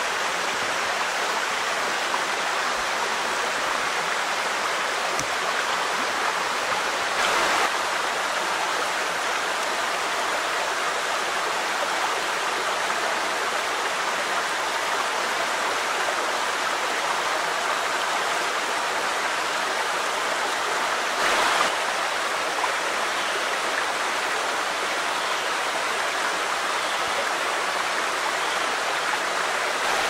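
Shallow rocky creek running over stones in small rapids, a steady rushing and babbling, with two brief louder swells, about seven seconds in and again about twenty-one seconds in.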